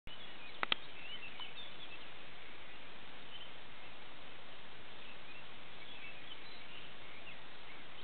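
Dawn chorus: many small birds twittering faintly over a steady hiss. Two sharp clicks sound less than a second in.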